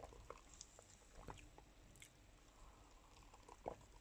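Near silence with a few faint, scattered mouth clicks and lip smacks from someone tasting a lemon-lime soda. One is a little stronger near the end.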